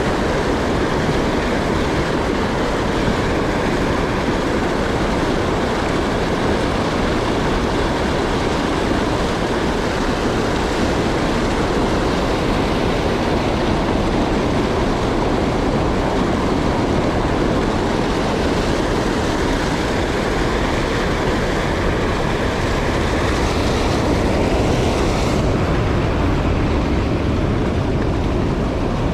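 Steady, loud rush of a mountain stream's flowing water.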